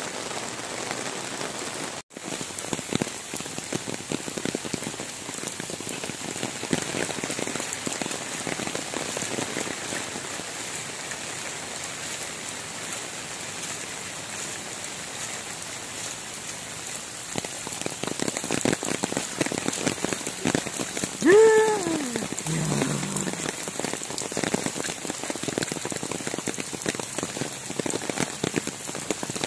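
Heavy rain pouring onto floodwater and the ground around it: a steady hiss full of drop patter, growing denser in the second half. About two-thirds through, a short call falling in pitch rises above the rain.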